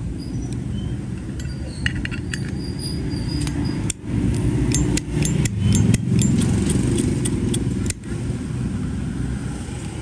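A low, steady rumble of motor traffic. Over it comes a run of small metal clicks and clinks as a brass Zippo insert is pushed back into its chrome case and the lighter is handled.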